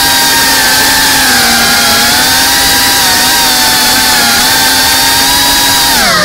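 FPV racing quadcopter's motors and propellers whining steadily in flight, the pitch wavering with the throttle and dropping sharply near the end before rising again.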